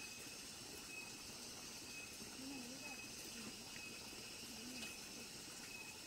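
Faint tropical evening ambience: a steady chorus of insects holding several high, unbroken tones, with faint distant voices now and then.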